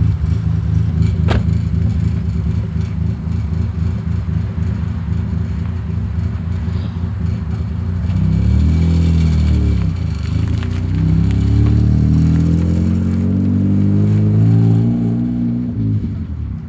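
Renault Clio 3 RS's 2.0-litre four-cylinder engine on a full-tube exhaust with no valve, idling steadily, then revving and pulling away about eight seconds in. Its pitch rises and falls several times before it fades near the end.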